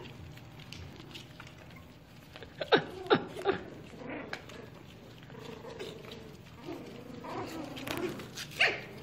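Puppies playing, with three quick yips falling in pitch about three seconds in and another short one near the end.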